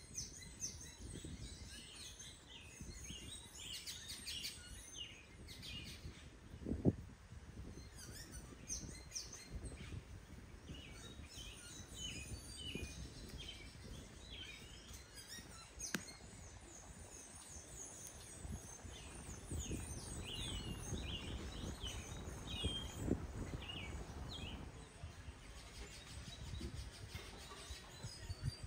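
Outdoor ambience of small birds chirping in many short calls over a low rumble, with a dull thump about seven seconds in and a single sharp click near the middle.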